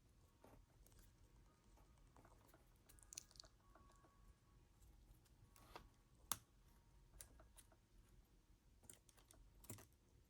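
Faint, scattered clicks and light scraping from hands working at plastic zip-tie restraints during an escape, with one sharper click about six seconds in.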